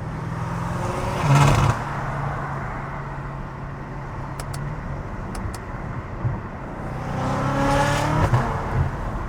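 BMW F90 M5's twin-turbo V8, fitted with front-mount intakes, under hard acceleration. The revs climb to a loud peak about a second and a half in, settle to a steady drone, then climb again in a second pull around seven seconds in.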